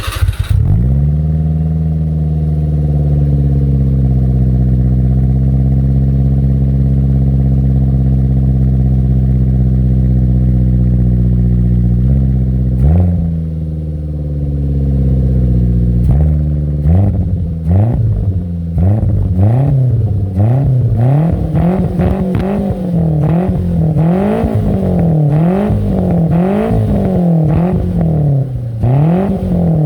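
Nissan March (K12) engine through a one-off racing exhaust with a Fujitsubo BLAZE 90 mm rear-exit silencer, a bit loud. Just after starting, the idle falls from a higher speed and settles into a steady idle, with one short rev about 13 seconds in. From about 17 seconds the throttle is blipped over and over, in quick regular revs, before it drops back to idle near the end.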